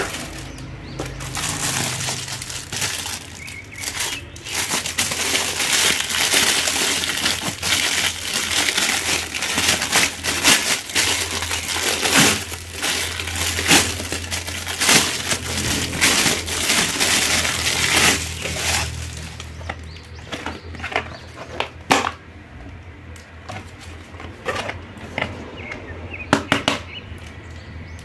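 Thin clear plastic bag crinkling and crackling loudly as a plastic face mask is handled and pulled out of it, full of sharp crackles. After about twenty seconds the crinkling thins to scattered crackles and taps.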